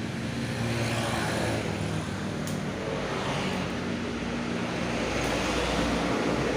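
A motor vehicle engine running steadily at low revs, with a low, even hum.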